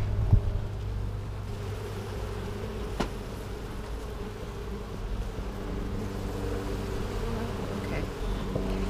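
A colony of Italian honey bees buzzing steadily over an open hive as it is being smoked, with a single sharp click about three seconds in.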